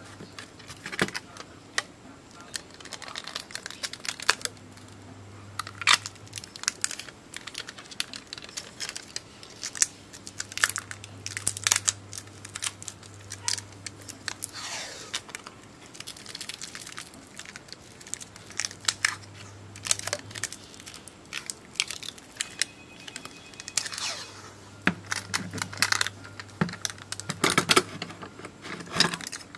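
Adhesive tape being peeled off and pressed around a lithium-polymer battery pouch: irregular crinkling and tearing with sharp handling clicks.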